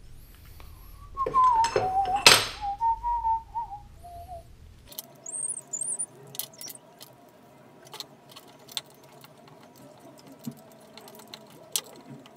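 Small metal clinks and taps of screws and an Allen key on an aluminium bracket being screwed together, loudest about two seconds in. Over the first few seconds someone whistles a few wavering notes.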